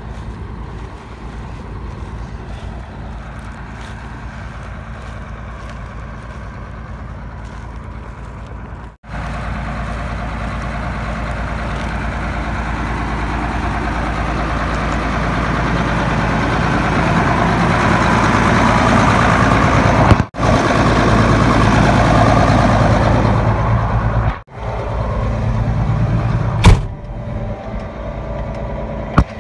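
Case IH 7230 and International 1466 farm tractors' diesel engines running steadily, heard in several clips that break off abruptly at hard cuts. The engine sound builds louder through the middle, and near the end there is a single sharp click.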